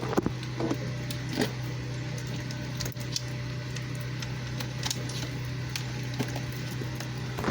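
Pressure washer running with a steady low hum while the nozzle tip on the spray wand is swapped, a few sharp clicks and knocks of handling the fittings in the first second and a half.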